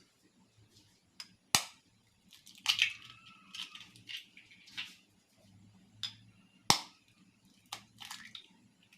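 Kitchen handling noises: two sharp knocks, about 1.5 s and 6.7 s in, among short clattering and rustling sounds.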